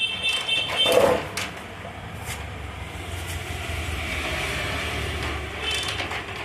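Motorcycle engine running at idle with a mechanical noise from the top end, which the mechanic takes for cylinder-head noise and not a bottom-end fault such as the connecting rod. There is a sharp louder sound about a second in.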